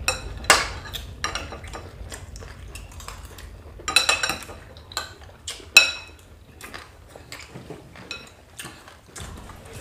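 Cutlery clinking and scraping against dishes during eating: a scatter of sharp, briefly ringing clinks, the loudest about half a second in, around four seconds and near six seconds.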